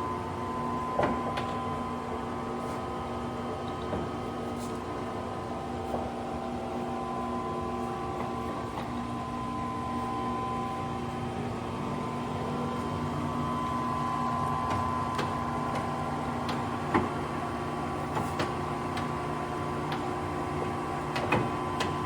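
Lion C13MB gap-bed engine lathe running under power, its spindle and headstock gearing giving a steady whine made of several held tones, with a few sharp clicks or knocks scattered through it.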